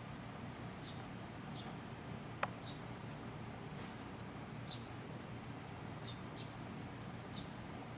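About seven short, high-pitched animal chirps at uneven intervals over a steady hiss, with one sharp click about two and a half seconds in.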